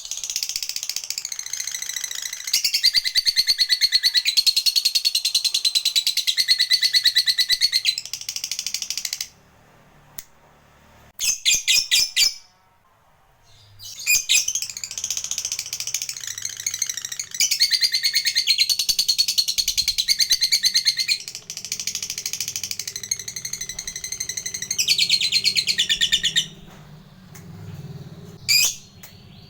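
Lovebird's long, fast chattering trill ("ngekek panjang"): a bout of about nine seconds, a short burst, then another bout of about twelve seconds, with a few short calls near the end.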